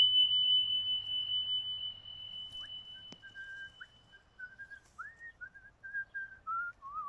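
A single high chime tone rings and fades over about four seconds. Then comes a short whistled tune of pure, sliding notes that steps down and ends on a lower held note.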